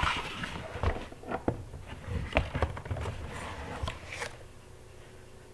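Scattered light clicks, taps and scrapes of objects being handled, busiest in the first couple of seconds and fading out toward the end.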